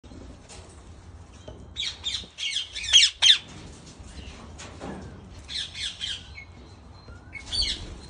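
Indian ringneck parakeets squawking: quick runs of harsh, screechy calls. The loudest come about two to three seconds in, with more around six seconds and again near the end.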